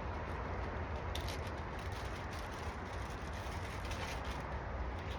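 Headlight lens being sanded with fine 4000-grit abrasive, a steady even sanding noise over a low rumble.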